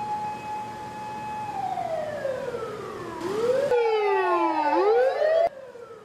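Japanese fire engine sirens wailing: a tone held for about a second and a half, then slowly falling and rising again. The sound cuts abruptly to another siren about two-thirds of the way in and again near the end, the last one fainter.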